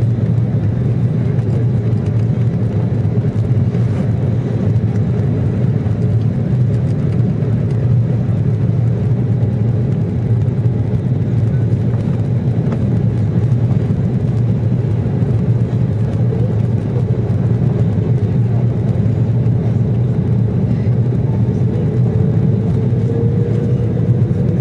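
Airliner cabin noise on descent: a steady, deep rumble of the jet engines and rushing air heard from a window seat. A faint tone rises slowly near the end.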